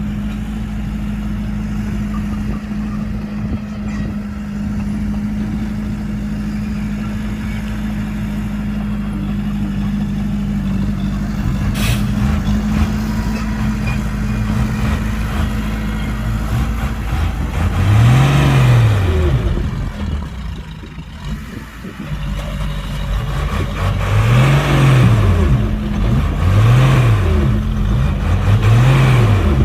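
Heavy diesel engine running steadily, then revved up and back down, once and then several times in quick succession about two seconds apart near the end.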